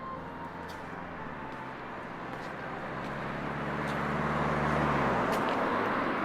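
A motor vehicle driving past: a rush of road noise with a low engine hum that grows louder to a peak about five seconds in, where the hum drops away.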